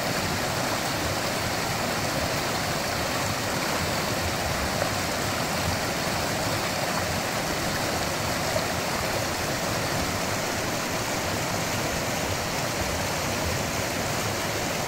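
Swollen mountain stream rushing steadily, a loud, even rush of water.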